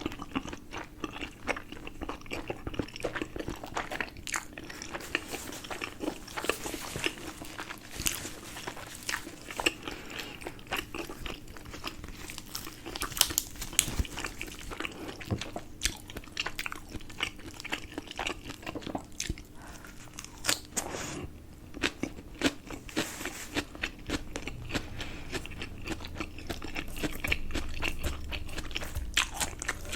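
Close-miked chewing and biting of homemade momos (steamed dumplings), with many small, sharp mouth clicks and smacks scattered irregularly throughout.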